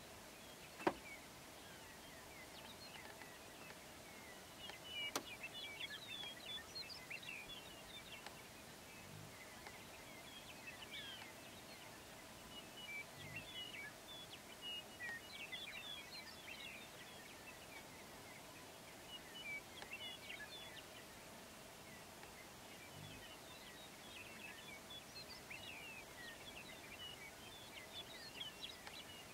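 Faint open-grassland ambience with distant songbirds singing in short bouts of high chirps every few seconds, and a single sharp click about a second in.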